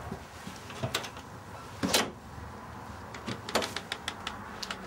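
A front door being unlocked and opened: a series of sharp clicks and knocks from the lock and handle, the loudest about two seconds in.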